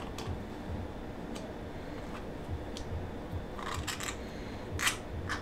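Light metallic clicks and ticks of a new high-compression piston being handled against its cylinder barrel, a few faint at first, then a quick cluster about three and a half seconds in and the sharpest click near the end, over a steady low hum.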